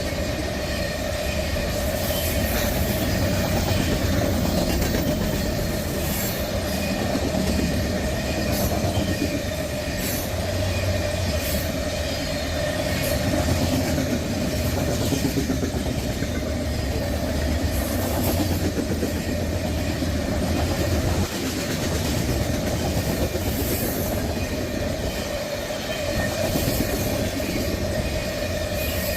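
Freight train cars rolling past: a steady rumble of steel wheels on rail, with clicks as the wheels cross rail joints and a thin steady wheel squeal over it.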